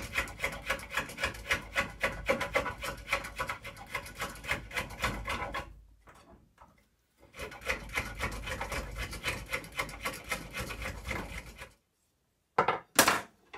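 Spoke shave cutting a wooden chair spindle clamped in a shave horse: rapid rasping shaving strokes that pause briefly near the middle and stop about twelve seconds in. The spindle is being trimmed down toward its final diameter. A couple of sharp wooden knocks come near the end.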